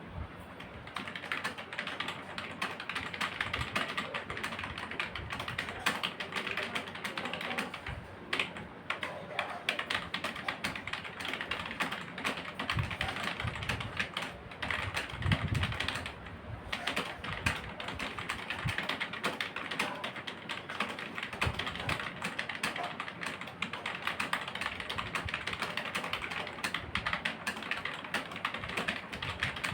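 Fast, continuous typing on a computer keyboard, a rapid stream of key clicks during a speed typing test, broken by a couple of brief pauses.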